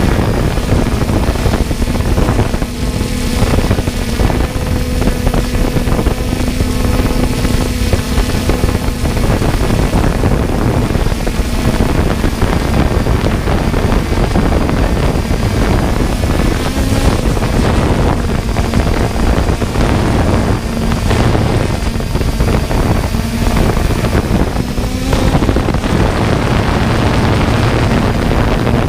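3DR Solo quadcopter's electric motors and propellers running in flight: a steady whirring hum whose pitch shifts slightly now and then, with wind rushing over the microphone.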